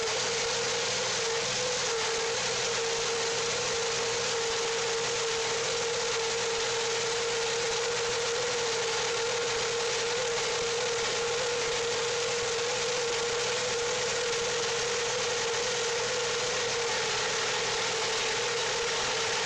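Wood-Mizer portable band sawmill running steadily: an even engine drone with a constant whine over a dense hiss.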